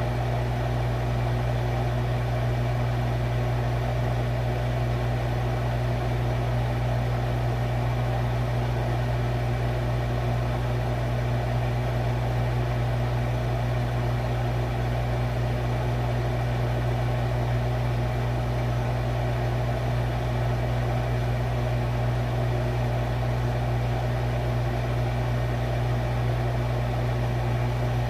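Refrigerator running: a steady low electric hum with a constant whirring hiss over it.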